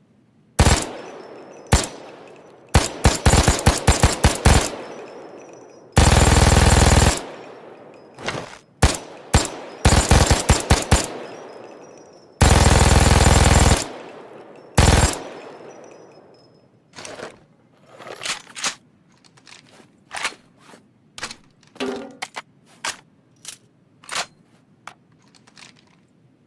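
MG-42 machine gun firing: a few single shots and short bursts, then long bursts at a very rapid rate that blur into one continuous run, each trailing a long echo. In the last third, fainter, scattered shots follow.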